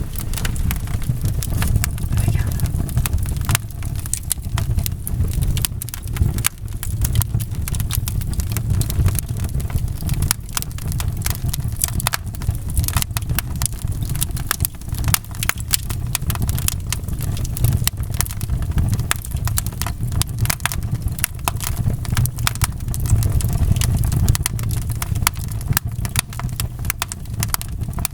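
Wood fire in a fireplace crackling: dense, irregular pops and snaps over a steady low rumble of burning.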